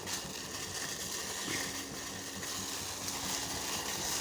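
Water boiling in a kadai, a steady even hiss; a faint steady hum joins about a second and a half in.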